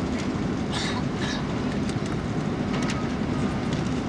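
Steady cabin drone of an Airbus A330-200 climbing out after takeoff, heard from a window seat over the wing: engine and airflow noise with a low steady hum. A few faint higher clicks come about a second in.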